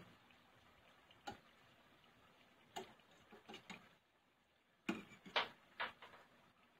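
Metal tongs clicking and tapping against a stainless steel frying pan while turning donuts in the oil. The clicks are sharp and scattered: a few single ones, then a loudest cluster about five seconds in.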